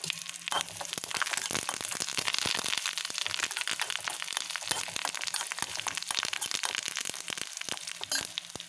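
Fresh curry leaves crackling and spitting in hot oil in a small kadai with frying shallots and dried red chillies: the tempering (tadka) stage. A dense crackle over a steady sizzle, thickest in the middle and thinning near the end.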